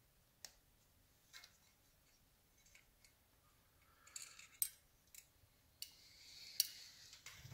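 Faint, scattered sharp clicks and snips from small hand tools working on electrical wiring, coming closer together from about four seconds in, with rustling near the end.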